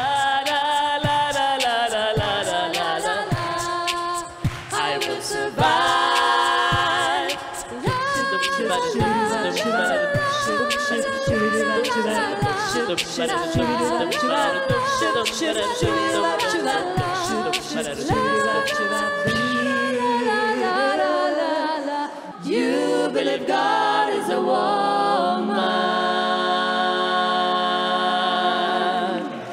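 Several voices singing a cappella in harmony, with sharp clicks keeping time through most of the song. Near the end they hold one long final chord, which cuts off sharply.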